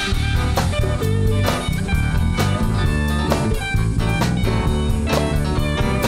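Blues-rock band playing: electric guitar over a drum kit keeping a steady beat, with no singing.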